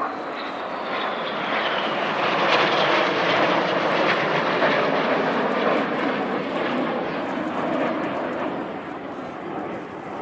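Red Arrows BAE Hawk T1 jets passing over during the corkscrew manoeuvre. The jet noise opens with a falling whine, swells to its loudest a few seconds in, then slowly fades.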